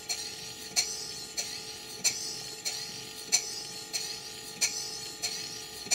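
Live-steam model beam engine running fairly fast, still new and not yet run in, with a regular click about every two-thirds of a second, each followed by a short hiss.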